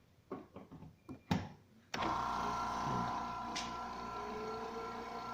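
A few handling knocks, then about two seconds in a fish-pond aerator's electric motor switches on and runs with a steady hum and whine. One tone rises slowly as it comes up to speed. It is a test run of a motor that keeps stopping after about ten minutes.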